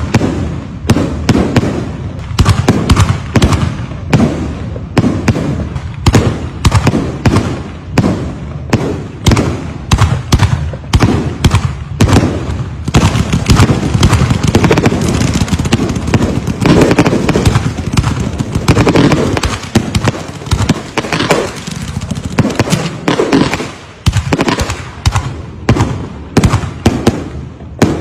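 Fireworks going off in a continuous barrage: sharp bangs and crackles two or three a second, overlapping without a break.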